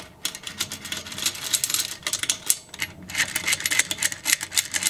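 Ratcheting screwdriver clicking rapidly and unevenly as it turns the screws of a Simson engine's Ducati Energia ignition stator base plate.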